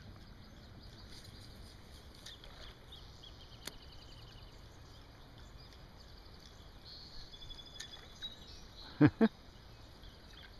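Quiet outdoor background with small birds chirping and trilling, then two short, loud knocks or splashes about a quarter-second apart near the end.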